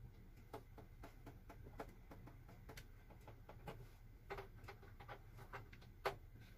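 Faint, irregular clicks and taps of hands working at the back of a wall-mounted TV, handling its cable plugs and connectors, with one sharper click about six seconds in, over a low steady hum.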